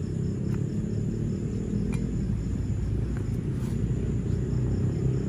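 Crickets chirping faintly in a steady pulsing rhythm over a constant low rumble, with a few faint clicks.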